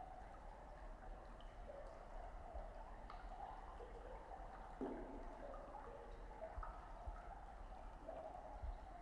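Faint trickling, gurgling water with small irregular drips, over a steady low hum.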